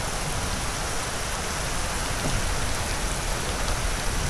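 Heavy rain falling steadily on a flooded street, a constant even hiss.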